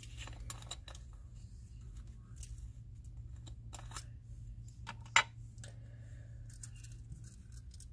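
Small clear plastic bead jars clicking and tapping as they are handled in a plastic bead storage case, with one sharper click about five seconds in. A low steady hum runs underneath.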